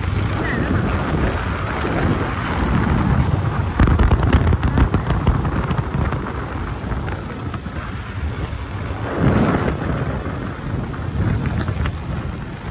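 Wind buffeting the microphone of a phone held out on a moving motorcycle: a loud, low rumbling rush that swells and eases in gusts, with the motorcycle's running and road noise underneath.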